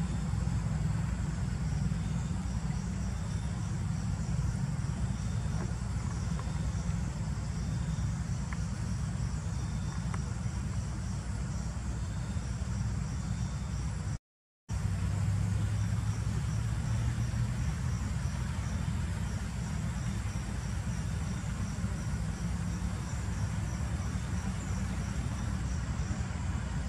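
Forest ambience: insects chirping in an even, repeating rhythm over a faint steady high insect whine, with a steady low rumble underneath. The sound drops out briefly about halfway through.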